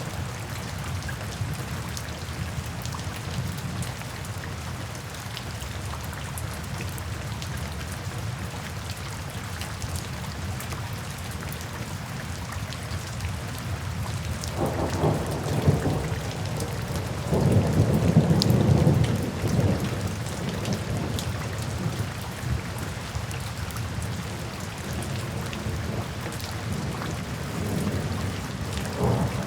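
Steady rain falling into puddles and standing water, with fine drop ticks throughout. Thunder rumbles low about halfway through, then again more loudly a couple of seconds later.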